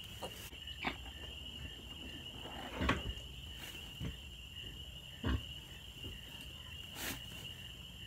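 A steady, high-pitched chorus of night insects keeps up throughout. Scattered soft knocks and rustles of towel and hay stand out over it as a newborn piglet is rubbed dry, the loudest about three seconds in and again a little after five seconds.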